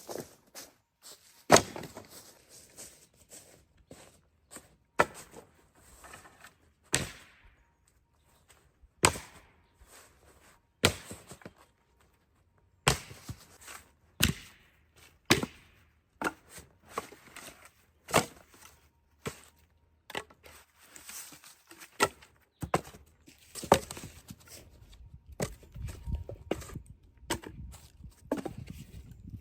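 An axe chopping wood: sharp strikes at an uneven pace, about one every second or two. Lower handling noise sits under the strikes near the end.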